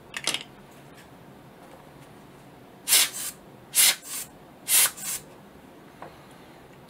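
Hand air blower puffing air at a camera lens element to blow dust off it. There is one short puff just after the start, then three strong puffs about a second apart, each followed by a softer second hiss.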